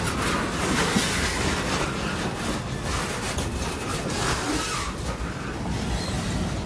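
Freight train boxcars rolling past close by: steel wheels running on the rails, with repeated clicks as the wheels cross the rail joints.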